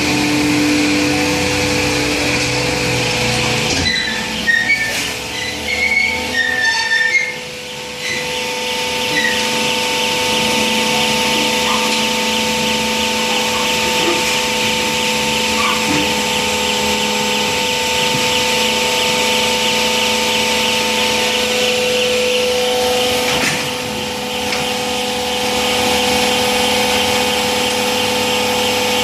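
Hydraulic baler running: the steady hum and whine of its hydraulic pump motor, with a few seconds of irregular clattering and short squeaks about four to seven seconds in.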